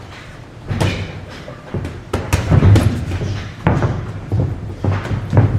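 Boxing gloves landing punches during sparring: a run of irregular thuds and slaps, a quick cluster of them near the middle.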